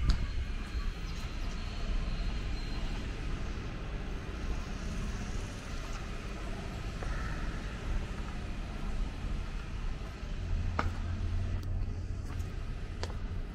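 Steady low hum of distant road traffic, with a sharp click near the end.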